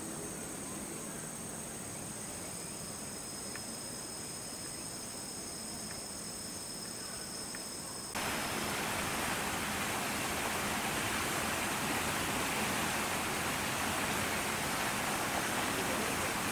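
Outdoor ambience: steady high-pitched insect trilling over a soft hiss. About halfway through, the sound cuts abruptly to a louder, even rushing hiss that lasts to the end.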